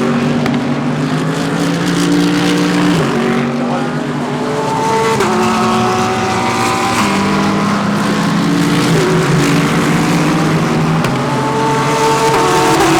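Several GT3 race cars running through a corner, their engines overlapping. The engine notes step and slide in pitch with gear changes as the cars brake and accelerate.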